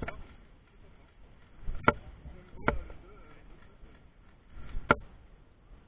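Three single airsoft shots, each a short sharp crack: two about a second apart near the two-second mark, and a third about two seconds later.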